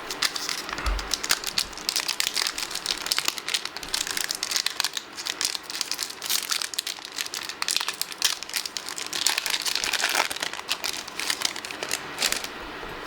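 Foil wrapper of a Pokémon trading-card booster pack crinkling as it is handled and opened by hand: a dense run of crackles that dies down near the end.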